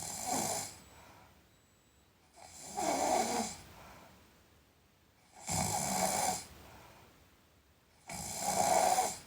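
A sleeping person snoring, four snores about every two and a half to three seconds, with quiet breathing between.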